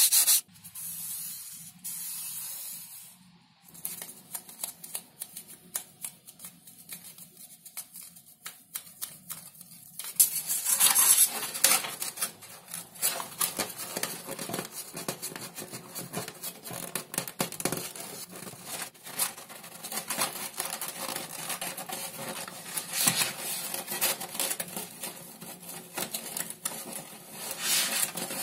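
A sandpaper block rasping along the edge of a thin XPS foam strip for the first few seconds. After a quieter stretch of light clicks, there is dense scraping, creaking and crackling of foam on foam as hands bend the strip and press it against a foam fuselage.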